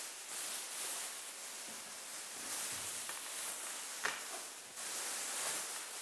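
Plastic sheeting rustling and crinkling as it is handled and lifted on a telescopic pole, with a single light click about four seconds in.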